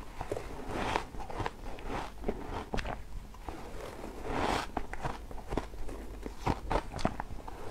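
Bites into a spoonful of fluffy shaved ice, crunching and crackling: two fuller crunches, about a second in and near the middle, with many short sharp crackles between and after.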